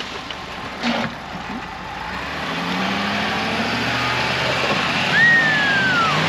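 A vehicle engine running, building and rising slightly in pitch from about two seconds in as it is worked harder. Near the end, a single short high whistle-like tone rises and then falls.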